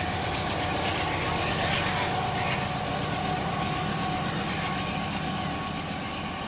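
Union Pacific diesel locomotive, the rear distributed-power unit of a freight train, working under power as it pulls away: a steady engine drone with a steady whine over it, slowly fading near the end.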